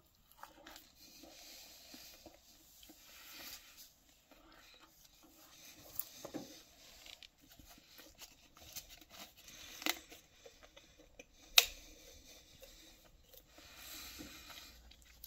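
Faint eating and handling noises: chewing, with soft rustles from a plastic soft-drink bottle and cardboard box being handled. A few sharp clicks stand out, the loudest a little past two-thirds of the way in.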